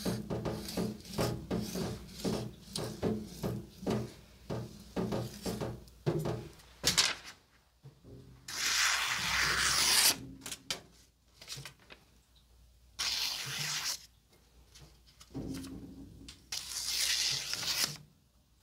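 Carbon-steel yanagiba blade stroked back and forth on a wet whetstone, about two strokes a second, for the first several seconds. Then three longer hissing swipes follow with pauses between them.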